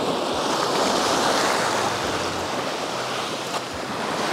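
Sea waves washing in, with wind on the microphone; the wash swells and then eases slightly.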